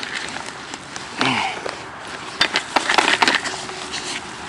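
Hands stirring and kneading a damp mix of fishing groundbait and wet soil in a plastic bucket: gritty rustling and crunching, with a quick run of crackly scrapes and clicks about halfway through.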